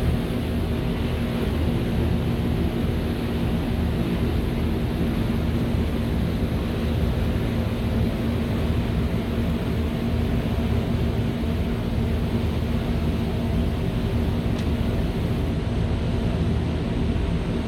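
Ferry's engine running steadily under way, a constant low hum over the rush of water and wind.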